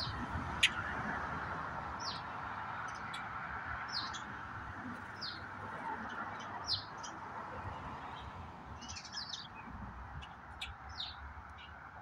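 Small songbirds chirping off and on: short, high chirps that mostly slide downward, about one every second or so, over a steady faint hiss.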